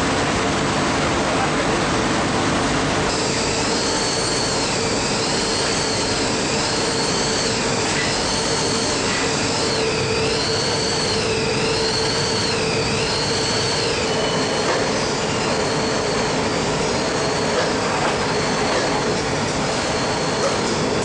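Steady, loud running noise of industrial laundry machines with a constant hum. From about three seconds in, a high squeal joins it, wavering up and down, and it fades out after about eleven seconds.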